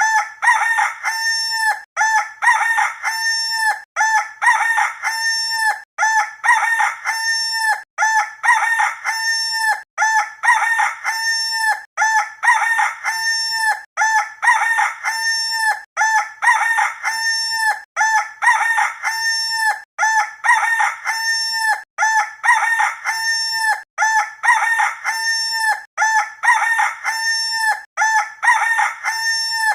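Rooster crowing sound effect: the same cock-a-doodle-doo call repeating over and over, about once every two seconds, with only a brief gap between calls.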